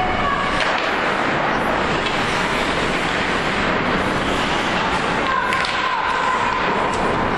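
Ice rink game noise: a steady wash of crowd chatter in a large echoing arena. A voice gives a drawn-out shout about five seconds in, with a few light clicks of sticks and puck on the ice.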